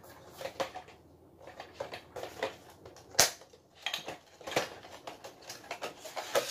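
Irregular clicks, taps and rustles of a telescopic carbon pole rod in its plastic wrapping being handled, with one sharp click about three seconds in.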